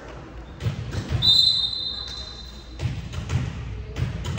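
A ball bouncing twice, then a referee's whistle blown in one steady blast of about a second and a half, the loudest sound here. After it the ball bounces again, about twice a second.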